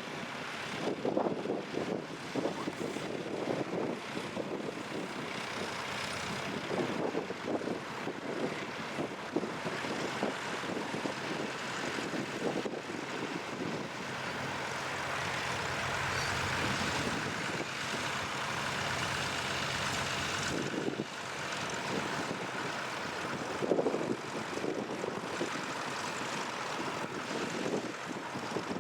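Tractor engine running steadily, growing a little louder through the middle and easing again.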